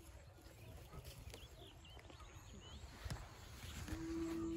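A few faint high bird chirps, then near the end a long, steady call that dips in pitch as it stops.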